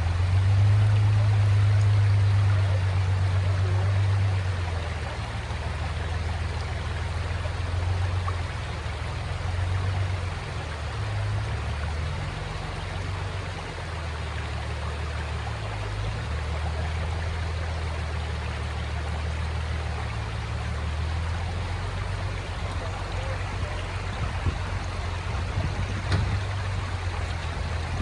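An off-road truck's engine running at low revs, its low drone shifting up and down in pitch as it works the trail, loudest in the first few seconds. A steady rushing noise lies over it throughout.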